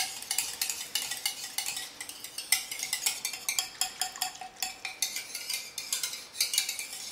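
A wire whisk beating thin tomato sauce in a bowl, its wires clicking quickly and rhythmically against the bowl's sides, several clicks a second.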